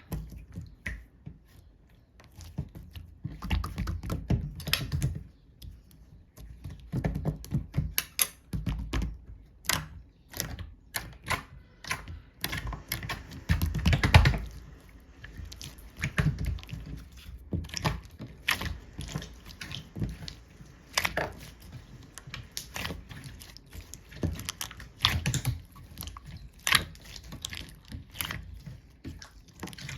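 Slime being kneaded and squeezed by hand: soft squishing with many sharp little clicks and pops as air pockets burst, the loudest squish about halfway through.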